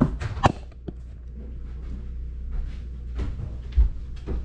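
Scattered knocks and thuds of household things being handled indoors, such as a cupboard door or drawer opening and closing: a few sharp knocks near the start and a heavier thud near the end.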